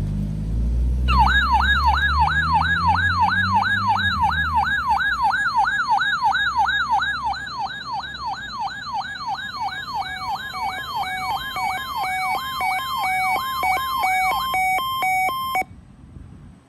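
Electronic emergency-vehicle siren on a rapid yelp, its pitch sweeping up and down about three times a second. Around ten seconds in, a hi-lo two-tone joins it, switching between two steady pitches. The yelp stops first, and the hi-lo carries on briefly before cutting off suddenly. A low rumble sits under the first few seconds.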